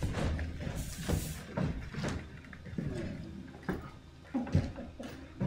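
Footsteps and scattered knocks on a stage floor: a handful of irregular thuds about a second apart as actors in boots cross the stage, one carrying a wooden staff.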